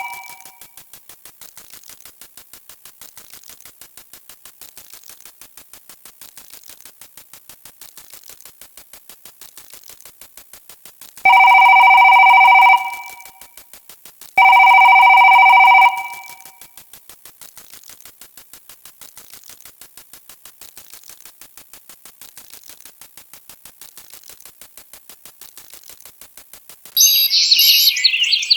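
Rapid, steady clicking with two loud electronic ringing tones, each about a second and a half long, partway through. Near the end a high, warbling electronic chirping starts.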